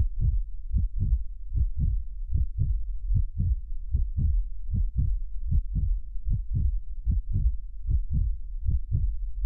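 Heartbeat-like pulse: pairs of low thumps, lub-dub, repeating about every 0.8 s (roughly 75 a minute) over a steady low rumble.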